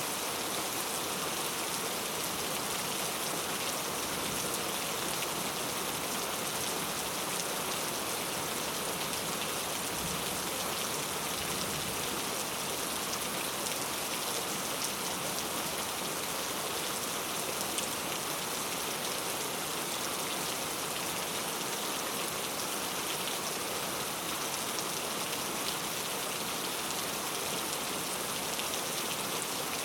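Heavy, loud rain falling and pattering on surfaces as a steady, dense hiss.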